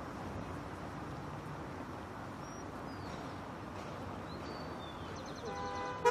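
City street traffic ambience: a steady wash of passing vehicles, with a couple of faint high chirps. Near the end a vehicle horn sounds briefly, ending in a sharp click.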